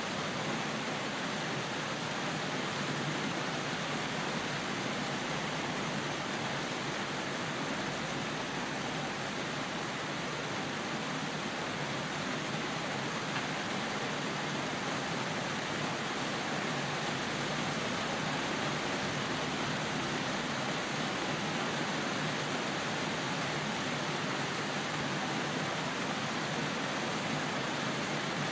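Steady rainfall, a dense even hiss with no change in level.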